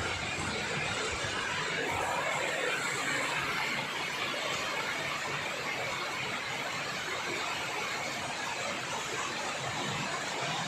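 Heavy rain pouring down in a cloudburst-like downpour, a steady, even hiss.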